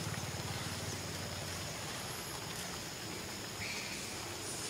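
Outdoor forest ambience with a steady high insect drone, a low hum that fades after the first second or so, and a short high chirp near the end.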